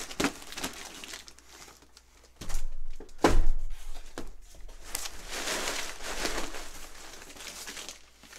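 Clear plastic packing crinkling and cardboard boxes rustling and scraping as boxes of model train track are lifted out of a shipping carton, with a dull thump of cardboard about three seconds in.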